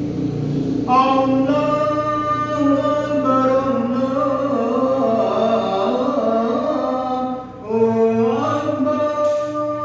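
A man's voice chanting the adhan, the Islamic call to prayer, into a microphone in long, drawn-out melismatic phrases. There is a short pause for breath about three quarters of the way through, then a new phrase rises and is held.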